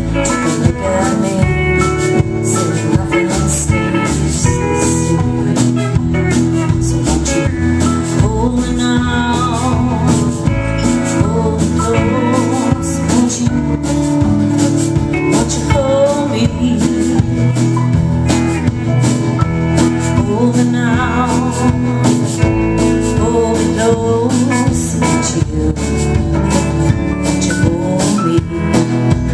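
Live band performing a song: a woman sings lead over strummed acoustic guitar, electric guitar and a drum kit keeping a steady beat.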